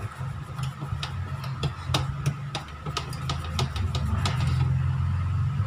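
Wire whisk beating cake batter by hand in a stainless steel bowl, its wires clicking against the metal several times a second in an uneven rhythm, over a low steady hum.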